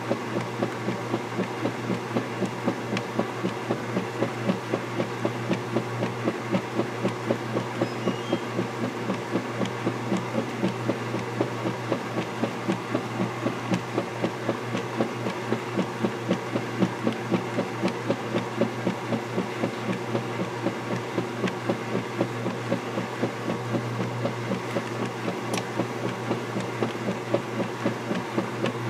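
KitchenAid direct-drive top-load washing machine agitating a wash load: a steady motor hum under rhythmic sloshing of soapy water and clothes, about two swishes a second as the finned agitator strokes back and forth.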